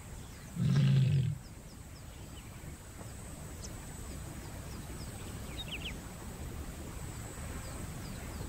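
A lioness calls once, a deep call of under a second, calling for a mate while in heat. After it comes a steady outdoor background with faint high chirps.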